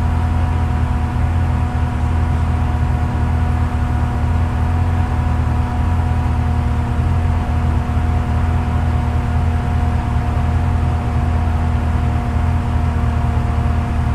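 Off-road vehicle's engine idling steadily, a constant low drone heard from inside its open, stripped-out cab.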